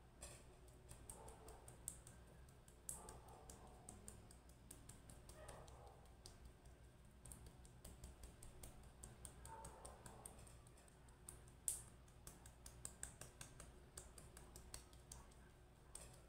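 Faint, irregular small wet clicks and ticks of fingertips massaging a gel facial emollient into the skin.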